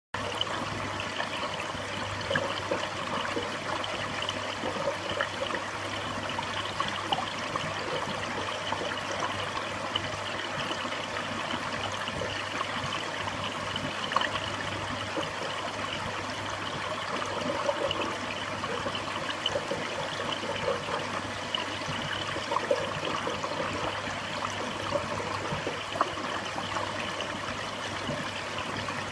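Reef aquarium water trickling and bubbling steadily, with scattered small pops, over a low steady hum.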